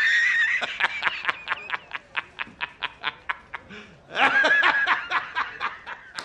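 High-pitched, rapid laughter, a sustained squeal breaking into quick cackles about five a second, twice over.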